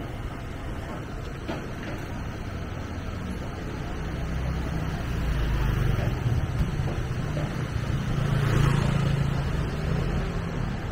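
Street noise with a motor vehicle going by close at hand: a low engine rumble builds from about halfway through and is loudest near the end.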